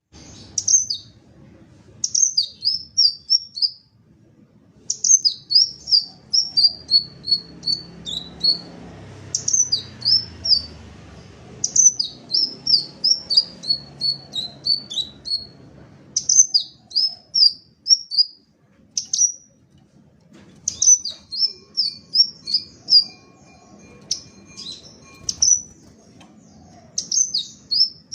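Red-tailed sepah raja, an Aethopyga sunbird, singing: repeated phrases of rapid, high, thin chirps that step downward in pitch, each phrase lasting one to three seconds with short pauses between.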